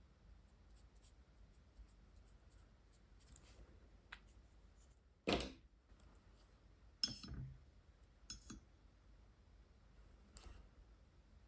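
Plastic brush markers being handled on a desk: a few sharp clicks and knocks over near silence, the loudest about five seconds in and a double knock about two seconds later.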